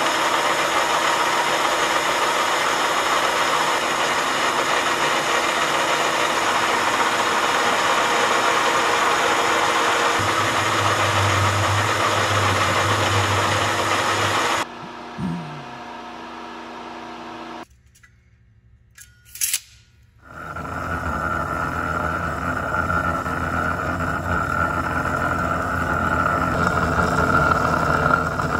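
Metal lathe running steadily while a cutting tool faces the end of a steel shaft to length. It stops about fifteen seconds in. After a short quiet gap, a cold saw's toothed circular blade cuts steadily through a round steel bar, with a strong steady tone.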